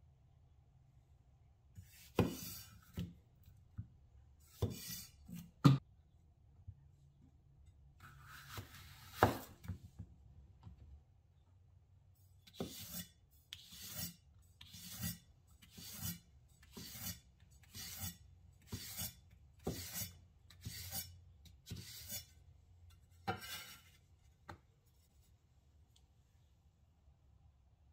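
A wide cleaver-style knife slicing through a zucchini on a wooden cutting board: each cut is a short crisp rasp ending on the board. A few spaced cuts come first, then a steady run of about ten cuts at roughly one a second.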